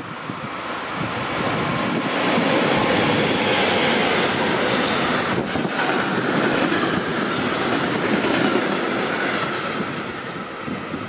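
Freight train of sliding-wall covered wagons passing at speed close by: a loud, steady rolling rumble of steel wheels on rail with irregular clattering, easing slightly near the end.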